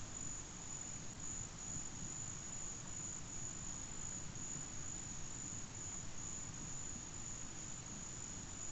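Insects trilling in one steady, unbroken high-pitched tone, over a faint even background hiss.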